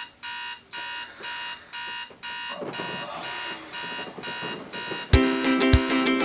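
Digital alarm clock beeping: short electronic beeps repeating about twice a second, fading out after about four and a half seconds. Plucked ukulele-like music starts about five seconds in.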